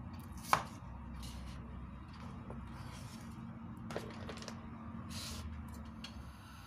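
Cleaver chopping shallots on a cutting board: one sharp chop about half a second in, followed by a few softer knocks and scrapes.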